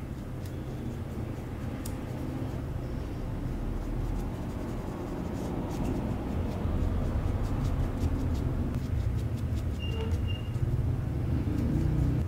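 Steady low rumble that grows somewhat louder about halfway through, with a few faint clicks over it.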